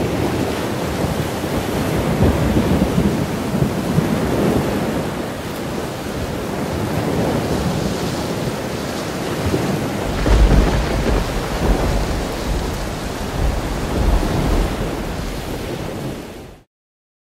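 Hurricane wind gusting at 40 to 55 mph with driving rain, loud and rising and falling in swells. A deeper low rumble joins about ten seconds in. The sound cuts off abruptly near the end.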